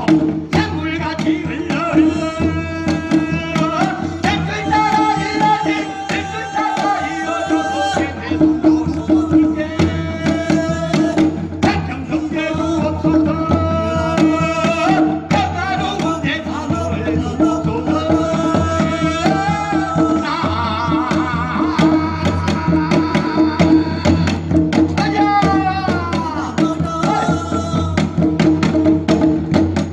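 A man singing a wavering folk melody while beating a hand drum in a quick, steady rhythm, over a constant low drone. Near the end the voice slides down in long falling notes.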